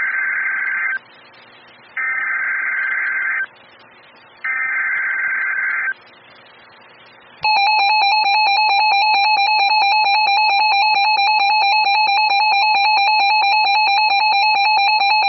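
Emergency Alert System header on NOAA Weather Radio: three bursts of screeching digital data tones, each about a second long, with short gaps between them. About 7.5 s in, a loud, steady alert tone starts and holds to the end.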